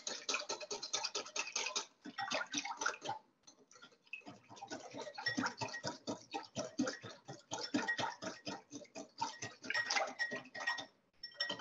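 Whisk beating against a bowl in a fast run of clicking strokes, whisking oil into a vinaigrette to emulsify it. The strokes pause briefly about two seconds in and for about a second between three and four seconds.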